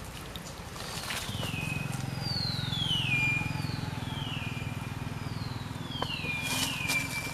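A low, steady engine hum, with a series of about five or six clear whistles over it, each falling in pitch.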